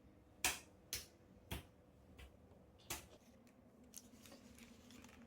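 A few sharp, light clicks or taps, about five in the first three seconds, then fainter ticks, with a faint steady hum coming in about three seconds in.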